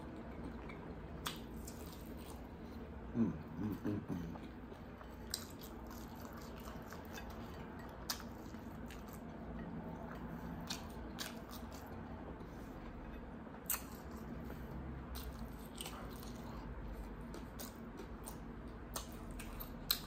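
Close-up eating of sesame-sauced chicken wings: wet chewing and biting with scattered sharp clicks and smacks. There is a short louder sound about three seconds in.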